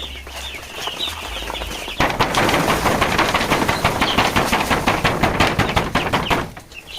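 Five-day-old broiler chicks peeping, then from about two seconds in a loud, rapid pattering rattle lasting about four and a half seconds as the flock scrambles and flaps away in alarm, before the peeping returns.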